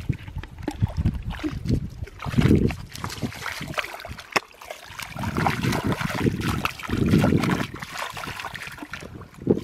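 Feet sloshing and squelching through soft mud and shallow muddy water in irregular wading steps, with splashes, loudest around two and a half seconds in and again from about five seconds on.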